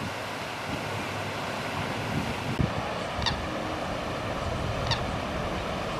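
Steady rushing of a 25 hp AquaMaster floating fountain's spray falling back onto the lake. A bird gives a short high call twice in the second half.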